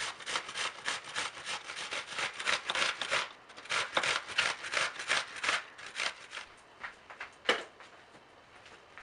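Cucumber being grated on a stainless steel box grater: a rhythmic rasping, about three to four strokes a second, that stops about seven and a half seconds in.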